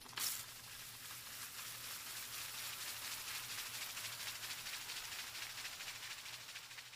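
A steady hiss of noise that starts with a short, sharper burst just after the beginning and holds, then fades out at the very end.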